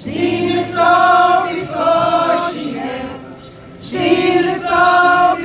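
Live music: many voices singing a wordless melody together in a few long, held phrases.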